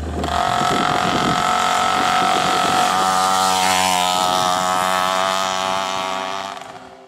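Small two-stroke moped engine running at a steady speed, its note shifting slightly about three seconds in, then fading out and stopping near the end.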